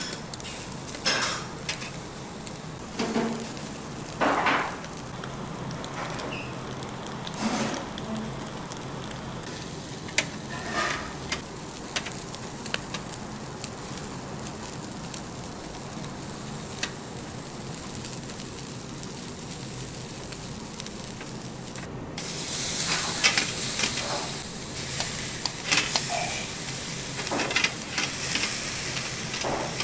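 Food sizzling as it fries, with scattered clicks of utensils. About two-thirds in, the sizzle abruptly becomes louder and hissier.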